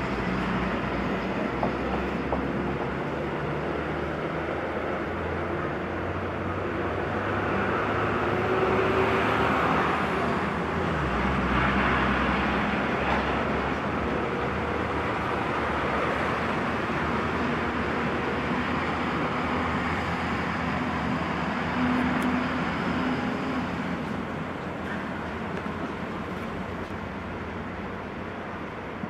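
Twin ALCo WDM-3A diesel locomotives running in the distance: a steady low engine drone whose pitch shifts about eleven seconds in.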